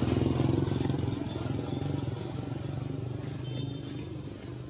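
A motor vehicle engine running steadily, loudest at the start and slowly fading.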